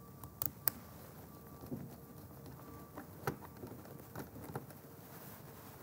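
Faint, irregular small clicks and scrapes of a small insulated screwdriver working the active terminal screw of an RCD as it is tightened, the sharpest ones about half a second in and just past three seconds.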